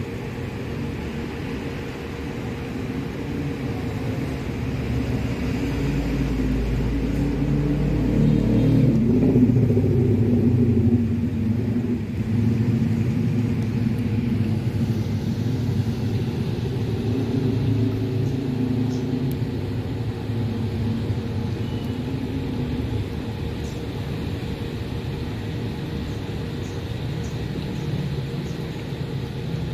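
Motor vehicle engine rumble, growing to its loudest about nine to eleven seconds in, then easing off and fading toward the end, over a faint steady hum.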